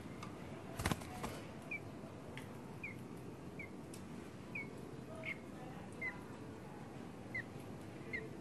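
Cucak jenggot (grey-cheeked bulbul) giving short, high, downward-slurred chirps, one every half second to a second. A single sharp click sounds about a second in.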